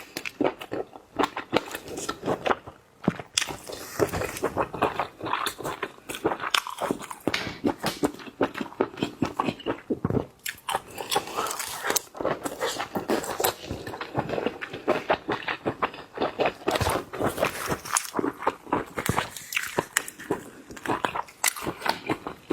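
Close-miked eating of seafood: steady biting and chewing with many quick wet clicks, and crunching now and then.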